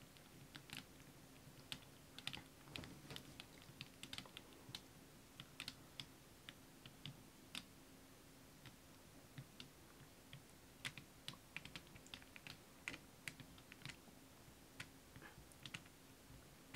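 Faint, irregular light clicks and taps from handling a wet poured canvas, gloved fingers on the canvas and its edge, over a faint steady hum.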